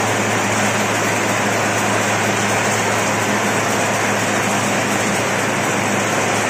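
Paper straw making machine running steadily: an even mechanical noise with a constant low hum.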